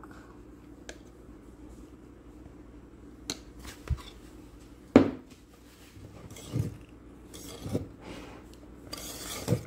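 A utensil knocking and scraping against a ceramic mixing bowl as whipped cream is scooped in, with one sharp knock about five seconds in. Near the end, a wire whisk starts stirring the cream into the fruit pudding.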